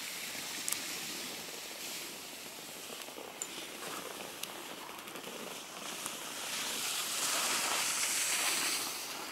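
Skis sliding and scraping over packed snow, a steady hiss that swells louder near the end, with a few faint clicks.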